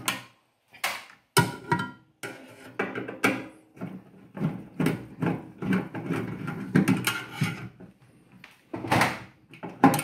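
Irregular clicks, taps and scrapes of a screwdriver and hands on the sheet-metal chassis and magnetron of a microwave oven as its mounting screws are backed out.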